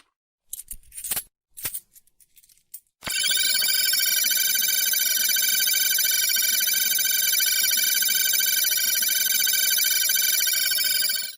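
A few short clicks and clatters in the first three seconds, then a loud electronic ringing tone with a warbling high pitch for about eight seconds, cutting off suddenly near the end.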